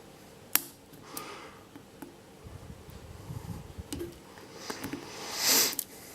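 Small clicks and scraping of a hook pick and tension wrench working the pins of a Yale Y221 padlock, with one sharp click about half a second in. A short breath-like hiss comes near the end.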